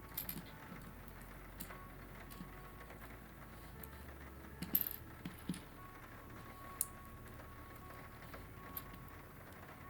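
Small plastic LEGO pieces being handled and pressed together: scattered faint clicks and taps, the sharpest about four and a half seconds in.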